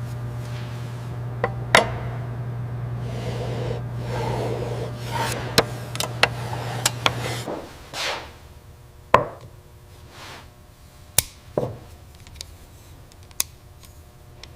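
Woodworking in a workshop: sharp knocks and clicks of wood and tools being handled, with some rubbing or scraping. A steady machine hum runs under it and stops about seven and a half seconds in.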